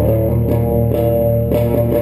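A live rock band playing an instrumental passage: a guitar picks a quick repeating pattern of notes over a held bass note, with no singing.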